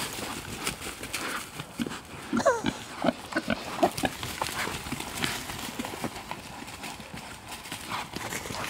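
Pigs running through dry fallen leaves, their trotters rustling and crunching the leaf litter, with a cluster of short falling grunts and squeals between about two and four seconds in.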